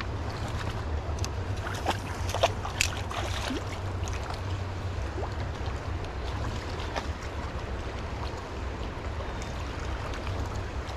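Fast-flowing river water rushing steadily, with a deep, constant rumble underneath. A few light clicks come between about one and four seconds in.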